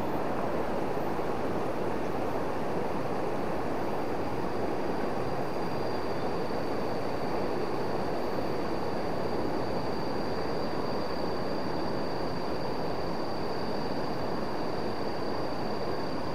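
Flooded river rushing steadily, a constant full water noise from the high, fast current. A thin, high steady whine joins about four seconds in.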